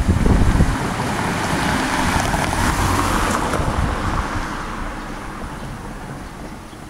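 A road vehicle passing along the street, its tyre and engine noise a hiss that swells for about three seconds and then fades away. Wind buffets the microphone in the first second.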